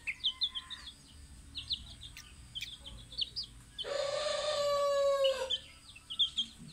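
Junglefowl calling: quick high chirps throughout, and about four seconds in one long call of about a second and a half that falls slightly at its end.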